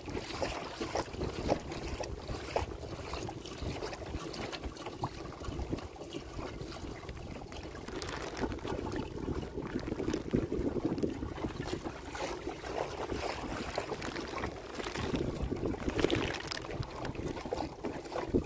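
Water splashing and trickling along a fishing kayak's hull as it moves across choppy water, with wind buffeting the microphone.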